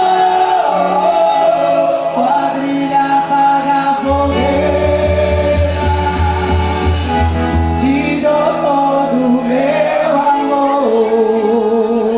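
Festa junina dance music with a singer over sustained melodic backing, and a pulsing low bass note from about four to eight seconds in.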